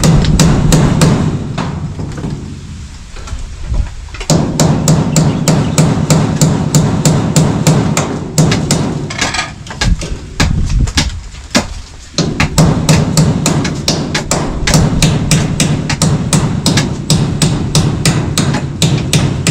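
Hammer driving nails into bamboo framing: rapid, evenly spaced blows, about three a second, with two short pauses.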